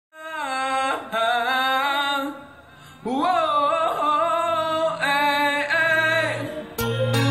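A male voice singing long, gliding held notes, with little else under it, breaking off briefly about two and a half seconds in. Near the end a backing track with a heavy bass beat comes in.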